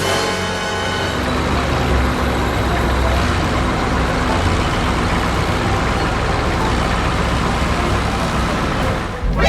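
Steady running of a heavy road vehicle's engine with traffic noise, a constant low rumble under an even hiss.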